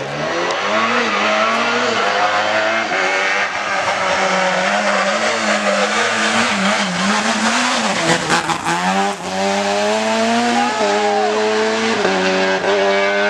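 Rally car engine at high revs working through a stage, the pitch climbing and dropping in steps as it shifts and lifts off the throttle. There is a short run of sharp cracks about eight seconds in as the revs drop.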